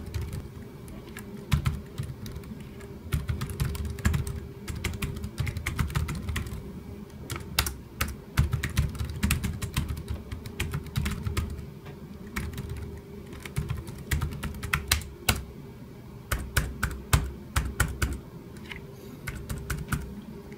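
Typing on the chiclet-style keyboard of an EPSON Direct Endeavor NY40S laptop: fast, irregular runs of key clicks broken by short pauses.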